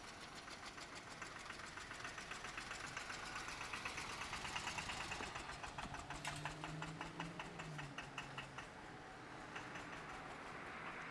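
An engine running with a rapid, even ticking that grows louder toward the middle and then fades.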